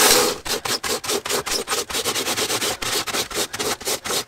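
Fast, even run of scratchy ticks as the abrasive belt of a homemade belt sander is worked by hand while it is tensioned and fitted.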